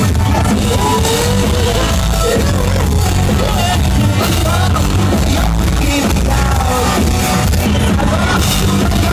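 Live rock band playing loudly: a lead singer's vocals over electric guitars and drums.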